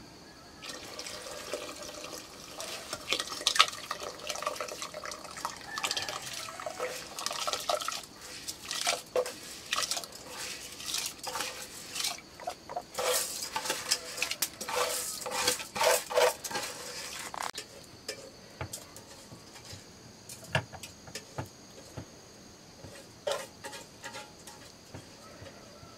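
Metal cooking pots and lids clinking and scraping, with water sloshing, as grain is washed and handled over a wood fire. The clatter is busy for the first seventeen seconds or so, then thins to a few scattered clinks.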